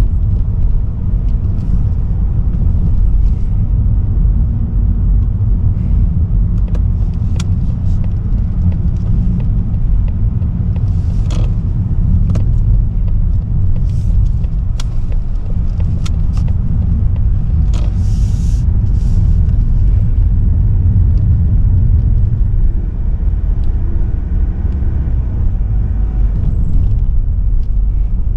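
Steady low rumble of a car on the move, road and engine noise from a Mazda3 Skyactiv-D 1.8 diesel, with scattered light clicks and knocks.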